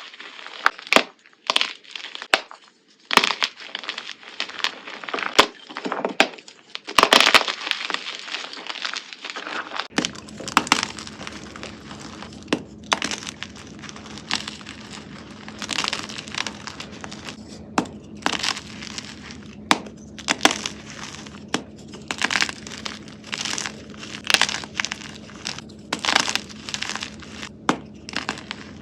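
Crunching and crackling of something brittle being crushed, in many quick, irregular strokes. About a third of the way through, a steady low hum comes in underneath.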